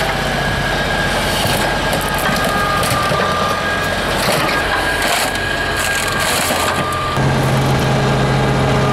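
Steel car body being crushed by an excavator bucket: sheet metal crunching and splintering, with thin high squeals. Under it runs the excavator's air-cooled three-cylinder Deutz diesel, which grows louder about seven seconds in as it takes the load.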